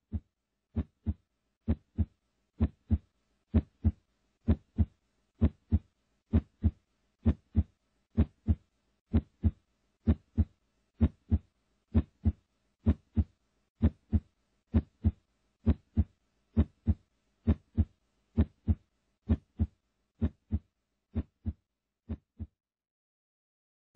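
Heartbeat sound effect: pairs of low thumps, a little under one pair a second. It swells over the first few seconds and fades away near the end.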